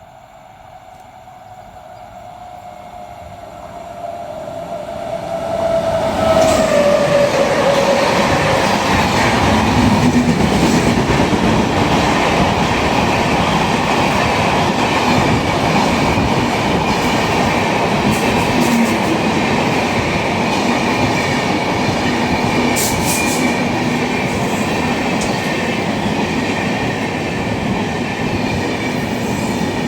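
A train approaching and passing at speed: it grows from faint to loud over the first six seconds, with a tone that drops in pitch as it arrives, then a long steady rumble and wheel clatter with a thin high ringing and occasional sharp clicks.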